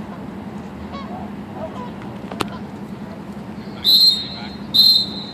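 Two short, shrill, high-pitched signal blasts about a second apart near the end, over a steady low hum.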